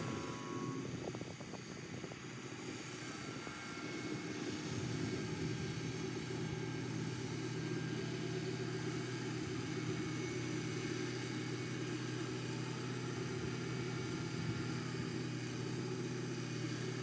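Farm tractor running steadily at a distance while pulling a rotary mower through pasture grass: an even engine drone that grows slightly louder about four seconds in.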